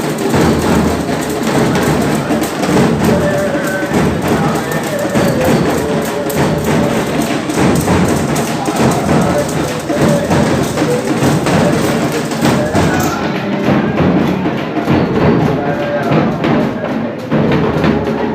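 Loud procession drumming: dense, rapid drum beats with other percussion, kept up without a break.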